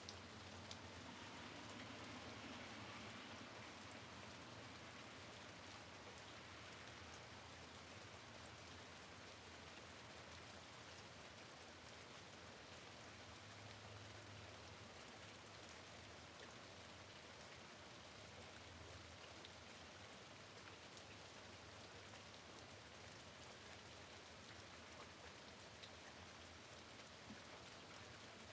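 Steady rain at a window: a faint, even hiss, dotted with the small ticks of single drops striking.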